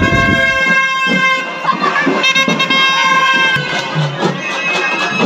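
Street procession music: a long held, high horn-like note that stops about three and a half seconds in, over steady dhol drum beats, with crowd noise.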